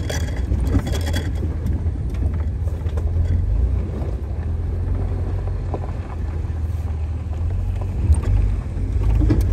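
Stock Jeep Wrangler TJ crawling over a rough dirt trail, heard from inside the cab: a steady low engine drone, with a few light rattles from plastic sunglasses hanging on a metal ring on the header.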